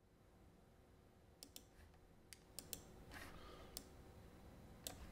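Faint computer mouse clicks, several single clicks scattered unevenly through the stretch.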